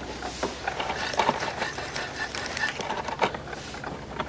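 Fishing reel being cranked during a retrieve: irregular mechanical clicking and knocking over a faint low steady hum.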